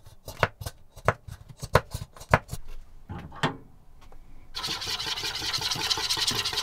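A dozen or so scattered clicks and knocks of utensils and bottles being handled, then, about four and a half seconds in, a stainless steel wire whisk starts beating a liquid marinade in a bowl: a fast, steady scraping swish.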